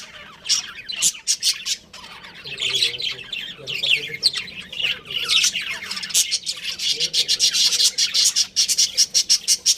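Budgerigars chirping and chattering, a dense run of rapid high chirps and squawks from several birds at once.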